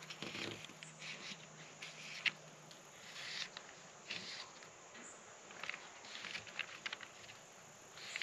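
Faint, scattered rustling and light taps of paper targets being handled while shot groups are measured.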